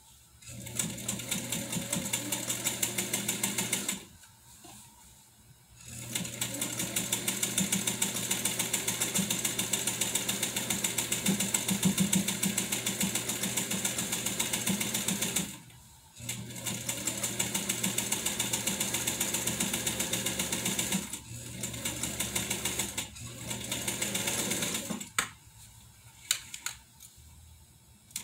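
A 1957 Atlas straight-stitch sewing machine running fast, stitching in several runs with short pauses between them. It stops a few seconds before the end, leaving a few sharp clicks.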